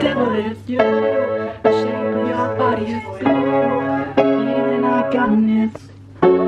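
Upright piano being played: a run of chords, each struck and left to ring for about a second, with a short break near the end before the next chord.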